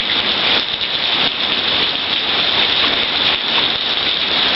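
Heavy rain pouring down: a loud, steady hiss full of small drop impacts.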